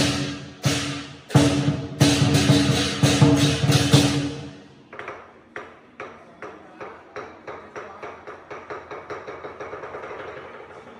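Lion dance percussion of drum, cymbals and gong playing loud, ringing beats that stop about four and a half seconds in. After that comes a softer run of strikes that gets steadily faster.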